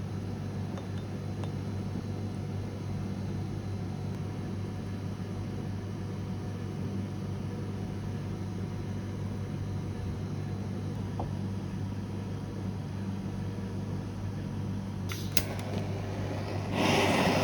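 Steady low mechanical hum of kitchen machinery. Near the end there are a few clicks, then a loud hiss of noise sets in.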